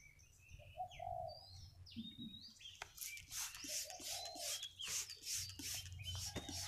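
Hand trigger spray bottle squirting over and over, about two to three quick hissing squirts a second, starting about three seconds in. Doves coo and small birds chirp in the background.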